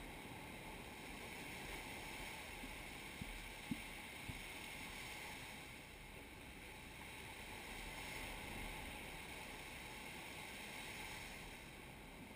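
Surf washing up the sand with wind on the microphone: a steady rush that swells and eases slowly, with a few light ticks a few seconds in.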